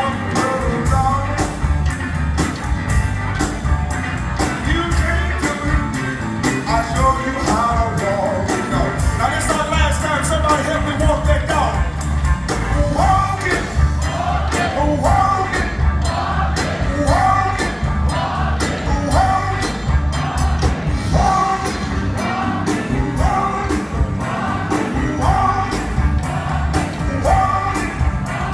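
Live blues band performance: a male singer on a microphone over electric guitar and a drum kit keeping a steady, driving beat, heard from the audience through the theatre's PA.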